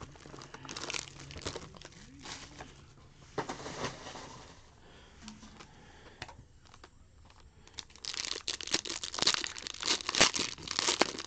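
Packaging crinkling in scattered bursts, then a foil trading card pack wrapper crinkling steadily and louder as it is torn open, from about eight seconds in.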